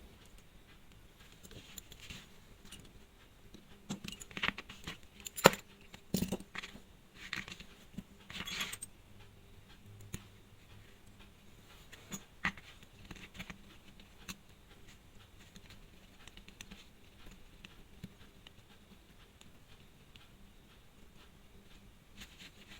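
Small clicks, taps and scrapes of watch-repair tools handling a battery-powered chronograph wristwatch, busiest in the first nine seconds with one sharp click a little after five seconds, then only occasional light ticks.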